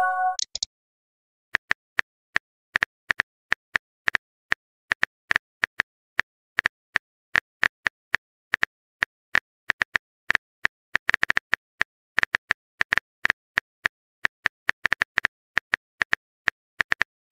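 Phone keyboard typing sound effect: a long run of short, quick clicks at an uneven pace, several a second, as a text message is typed.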